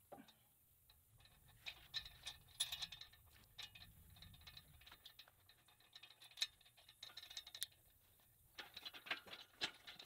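Faint, scattered clinks and rattles of an engine hoist's chain and hook as a lifting strap is fastened to it and wrapped around a log, in small irregular clusters with one sharper clink a little after six seconds.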